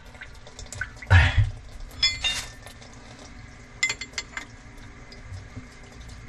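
An adjustable steel wrench handled against a chrome angle valve and its braided-hose nut while a leaking joint is tightened. There is a dull knock about a second in, then a few short ringing metallic clinks around two and four seconds in.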